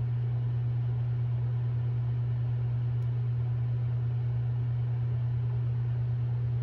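A steady low machine hum with a faint hiss behind it.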